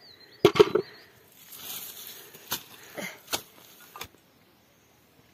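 A handful of sharp knocks and clicks, the loudest a close pair about half a second in, with a brief faint hiss in between; the sound stops about four seconds in.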